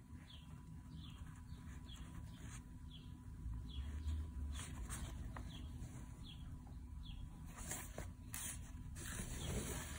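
Faint rasping of embroidery thread and needle drawn across fabric stretched in a hoop, a few short strokes with the longest near the end, while a bird chirps in the background with short falling chirps about every half second.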